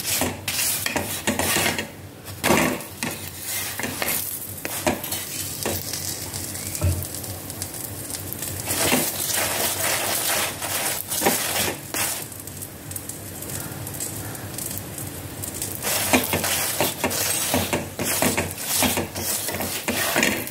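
Stuffed paneer paratha sizzling in ghee on a hot tawa while a wooden spatula presses and scrapes it in repeated strokes, crisping it. The strokes thin out for a few seconds in the middle while the sizzle goes on.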